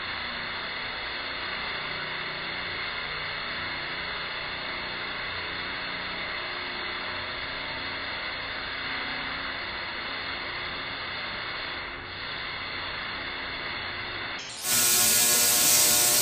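Tesla coil discharging, its sparks making a steady buzzing crackle. It grows abruptly louder and brighter about fourteen and a half seconds in.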